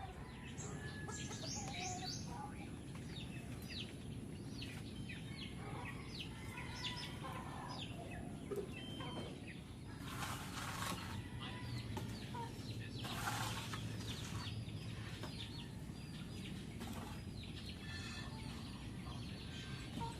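Chickens clucking and birds chirping: many short, high chirps scattered throughout, over a low steady background. There are two brief hissing bursts, about ten and thirteen seconds in.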